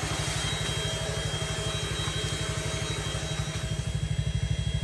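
An engine running steadily, with a low, even throb of about a dozen pulses a second.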